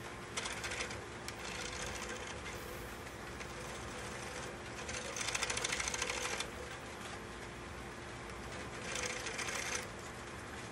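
Homemade wooden spring-pole lathe working, the spindle driven back and forth by the treadle rope while a flat chisel, held on its side like a skew, cuts a bead into the wood. The cutting grows louder for a stretch about five seconds in and again briefly near the end.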